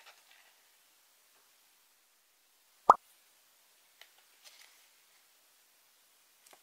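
A single loud, short pop about three seconds in. Around it are only faint rustles and taps of a small cardboard box and a paper leaflet being handled.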